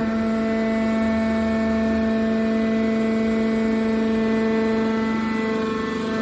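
Hydraulic power unit of a scrap-car baling press running: its electric motor and pump give a steady, even hum.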